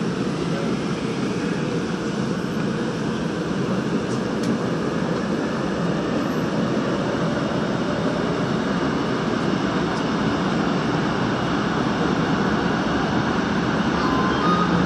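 Busan Metro Line 3 subway train running through a tunnel, heard from inside the train: a steady rumble of wheels on rails that grows slightly louder as it goes.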